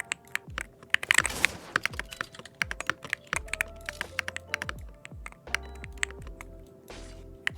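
Computer keyboard being typed on: a fast, uneven run of key clicks over background music with bass pulses. There is a whooshing sweep about a second in.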